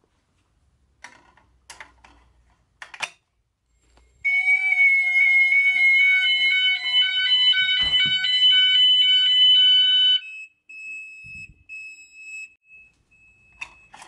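A few clicks as a fire alarm call point is operated. About four seconds in, the fire alarm sounders start a loud alternating multi-tone alarm, a full activation of the Gent fire alarm system on a call point test. About six seconds later they cut off when silenced at the panel, and a quieter single tone carries on.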